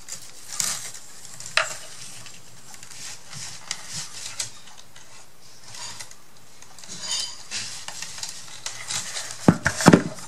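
Paper and craft pieces being handled and shifted on a work surface: soft rustling and scraping with light ticks, and a few sharp knocks near the end.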